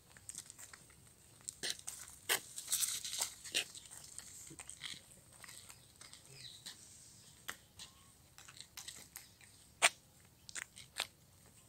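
Irregular sharp crunching and crackling clicks, scattered and uneven, with a short rustling stretch about three seconds in and the sharpest click near the end.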